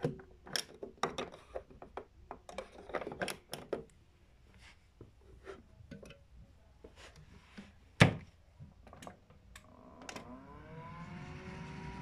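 Clicks and knocks from handling an LG WD-14370FD front-loading washing machine, then a loud thump about eight seconds in as its door is shut. About ten seconds in, a whine rises in pitch and settles into a steady tone over a faint hiss as the machine starts up.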